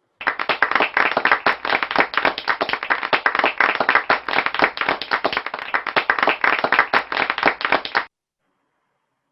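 A recorded crowd-applause track of many hands clapping rapidly. It starts abruptly and cuts off sharply after about eight seconds.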